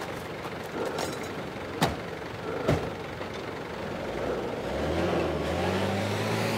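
A few sharp knocks in the first half, then about two-thirds of the way in a pickup truck's engine comes in and runs with a steady low hum as the truck pulls away down a dirt road.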